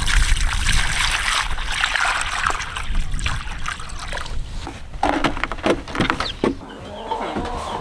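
Water poured from a plastic bucket splashing into a rubber pan for about four seconds, followed by a few short knocks.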